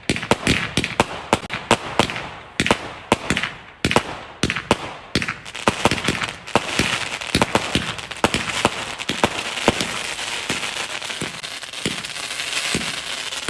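Fireworks going off: a fast string of sharp bangs, turning about six seconds in into a dense, continuous crackle with scattered pops.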